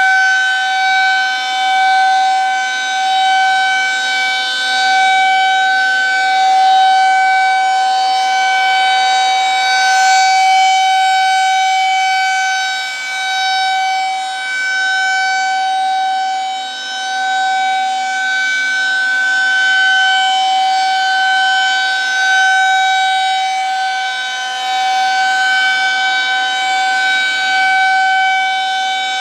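Federal Signal 2001-SRNB outdoor warning siren sounding a steady, unwavering tone during its test, its loudness swelling and fading every few seconds as the rotating head sweeps past.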